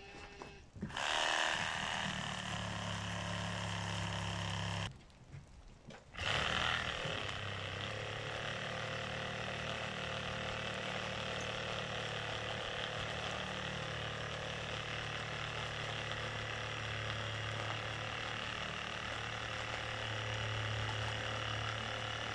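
A steady low mechanical hum, breaking off for about a second around five seconds in and then resuming.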